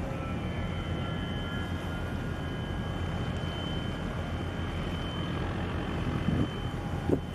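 Steady low engine drone with a thin high whine over it, and a couple of wind bumps on the microphone near the end.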